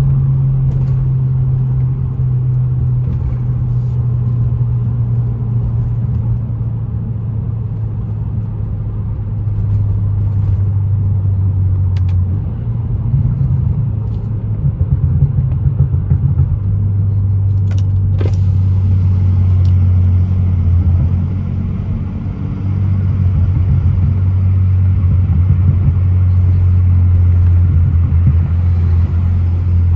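BMW F30 328i's turbocharged four-cylinder engine humming under steady cruise, with road noise beneath. The engine note slowly sinks in pitch, then holds with a few brief rises and dips as the throttle changes.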